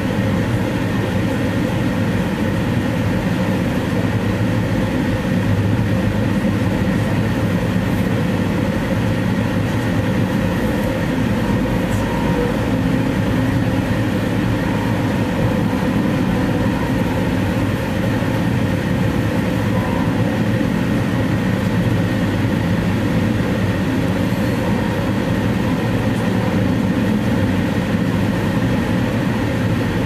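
A moving Amtrak passenger train, heard from inside its dome car: a steady rumble of wheels on rail and running noise.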